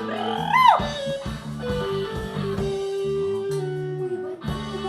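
Band playing an instrumental passage with electric guitar over a repeating bass line, with one high note that slides up and falls back about half a second in.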